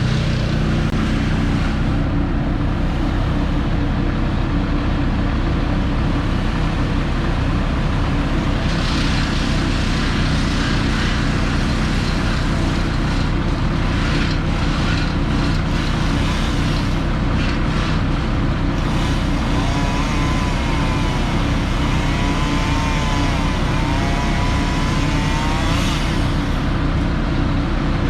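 A large engine running steadily at a constant speed. For several seconds near the end, a wavering tone rises and falls over it.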